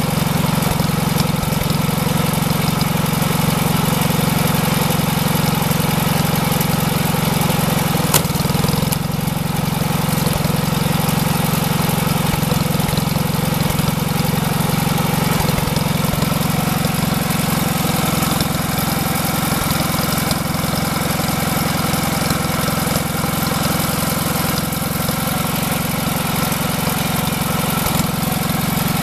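Small gasoline engine driving a homemade log splitter, running at a steady speed throughout, with one sharp crack about eight seconds in.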